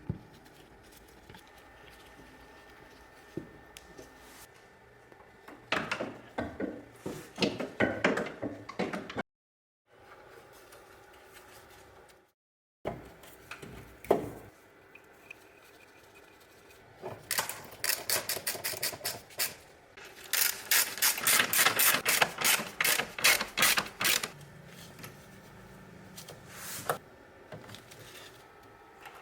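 Runs of rapid, evenly spaced ratcheting clicks from a hand tool working on a car steering rack, in two main spells with short breaks and a few single knocks between.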